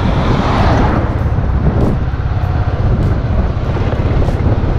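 Motorcycle on the move: a steady low wind rumble on the microphone over the running engine and road noise.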